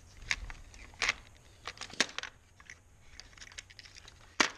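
Small ice-fishing jigs clicking and rattling against each other and a clear plastic compartment box as fingers sort through them. The clicks are irregular, and the sharpest comes near the end.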